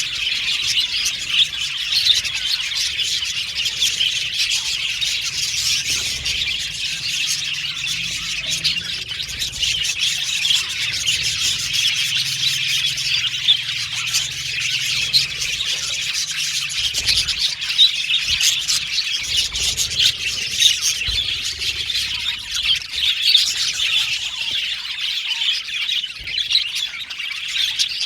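A colony of budgerigars chattering, chirping and squawking all at once, a dense continuous overlapping twitter from many birds.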